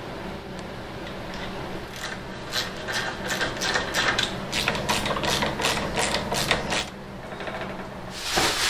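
Ratchet wrench on a long socket extension clicking in quick runs, several clicks a second, as a bolt at the motorcycle's rear axle and chain adjuster is wound off. A steady low hum sits underneath.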